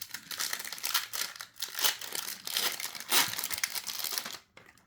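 Foil wrapper of a trading-card booster pack crinkling and crackling as it is handled and opened, stopping a little before the end.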